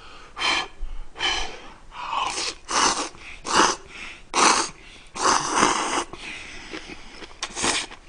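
A man slurping noodles from a bowl in a string of short, noisy sucking slurps, about ten over the stretch, close to the microphone.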